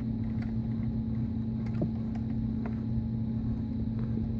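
A steady low hum with a few faint, light clicks over it.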